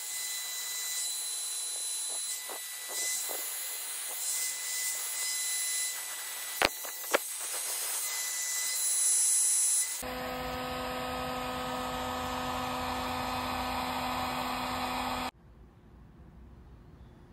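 Heat gun blowing steadily, shrinking a 90-degree heat-shrink boot onto a Raychem-sleeved wiring harness: a loud airy hiss with a faint high whine, with two sharp clicks about 7 seconds in. About 10 seconds in the sound switches abruptly to a lower, steadier hum with a pitched drone, which cuts off about 15 seconds in.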